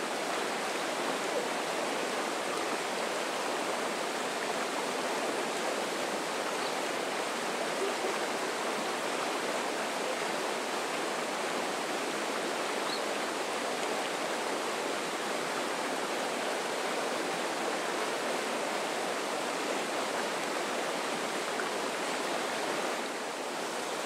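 Swift river rapids rushing over rocks, a steady, unbroken roar of white water.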